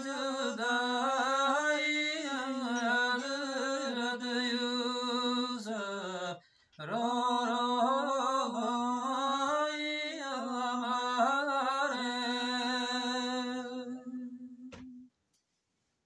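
A man's unaccompanied voice chanting a Gojri folk verse narrative in long, drawn-out melodic phrases. There are two phrases, with a brief break for breath about six and a half seconds in, and the voice stops about fifteen seconds in.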